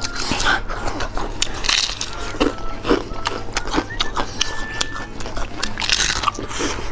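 Close-miked crunching and chewing of crispy deep-fried chicken-leg rolls, with two louder crunchy bites about two seconds in and near the end.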